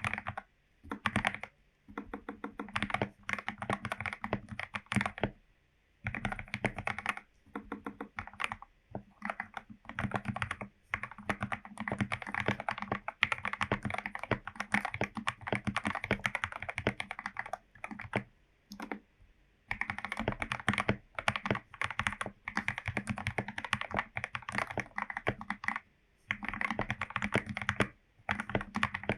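Typing on a Royal Kludge RK84 mechanical keyboard with lubed Gateron Yellow linear switches: dense runs of keystrokes broken by short pauses of about a second.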